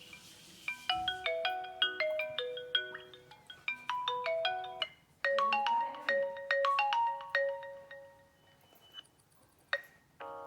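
Vivo phone ringtones played one after another: a quick melody of short notes that stops just before halfway, then a different ringtone with longer held notes that fades away. A sharp click comes near the end.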